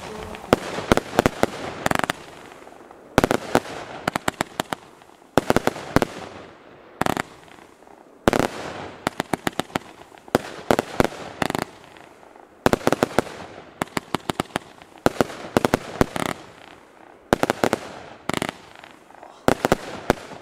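Heron SW 8 firework cake, a bang-and-effect battery, firing shot after shot: roughly every second to second and a half comes a quick run of several sharp bangs, with a hiss of burning effects between the runs.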